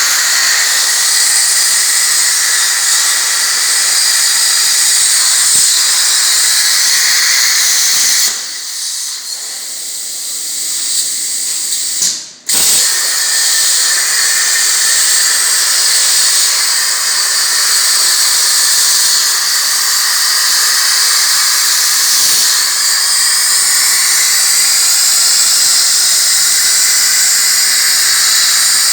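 CNC plasma cutter torch cutting sheet metal: a loud, steady hiss. It drops down about eight seconds in, cuts off sharply for a moment about twelve seconds in, then starts again.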